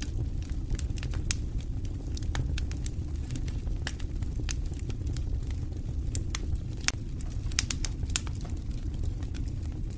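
Wood fire burning in a stone fireplace: a steady low rumble of flames with irregular sharp crackles and pops, a few louder pops near the end.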